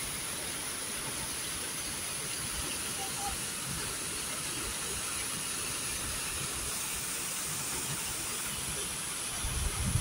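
Steady rushing noise of a tall waterfall pouring down a rock face into a plunge pool. Low thumps on the microphone come in near the end.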